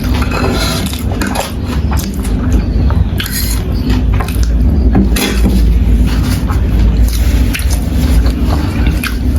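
Utensils clinking and scraping against a bowl of spicy noodles being eaten close to the microphone, in many short irregular clicks.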